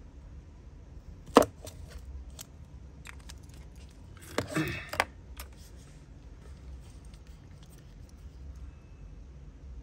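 Sharp metallic clicks from handling a Zippo lighter: one loud click about a second and a half in, then a short cluster of clicks and rustling around four and a half to five seconds in, with a few faint ticks between.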